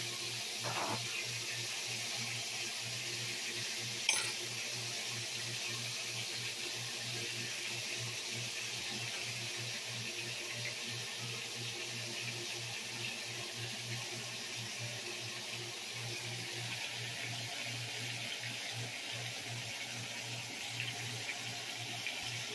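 Seasoned beef neck bones searing in a hot skillet: a steady sizzle. One sharp clack about four seconds in.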